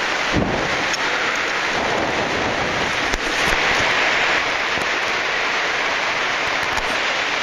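Steady rushing of falling water from a waterfall cascading down a limestone pothole shaft, with a soft thump about half a second in.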